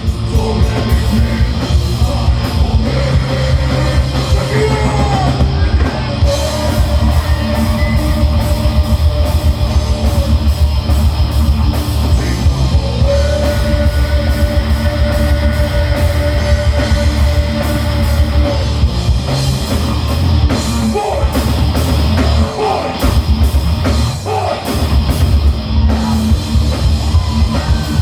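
Heavy metal band playing live: drum kit and guitars at full volume, with long held notes in the middle of the passage.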